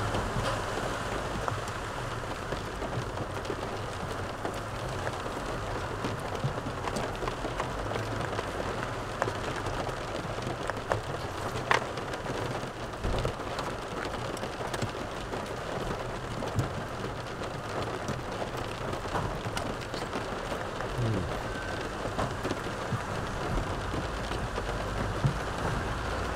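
Steady rain pattering on the roof of a parked car, heard from inside the cabin over a low steady hum, with scattered small clicks and rustles of hand-eating from a plastic takeaway container.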